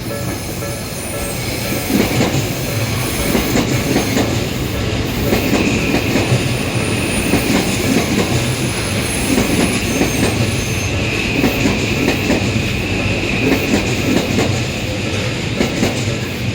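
Electric train passing close by at a level crossing. Its wheels clatter rhythmically over the rail joints, with a steady high wheel squeal from about five seconds in until near the end.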